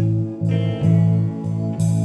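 Guitar playing picked notes at about two notes a second, each attack ringing on over sustained lower notes.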